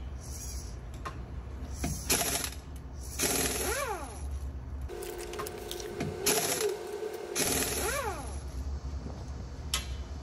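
Small parts of a 1/10 RC car clicking and rattling, with a small electric motor whirring up and then down in pitch twice over a steady low hum.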